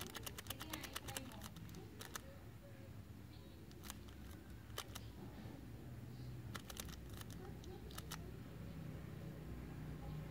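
Sharp clicks of buttons being pressed to work through a digital TV box's menu: a fast run of about ten in the first second and a half, then single clicks and short clusters. A low hum builds over the last few seconds.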